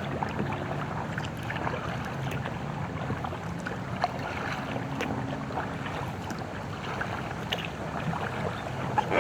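Inflatable kayak being paddled: water splashing and dripping off the paddle in scattered small splashes, over a steady wash of water and air. A faint low hum lies underneath.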